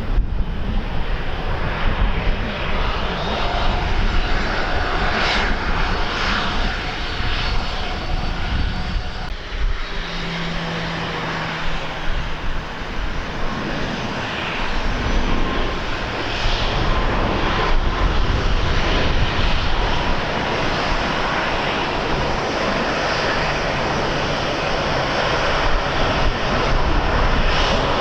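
Airliner engines running, a steady rushing noise that grows a little louder about halfway through.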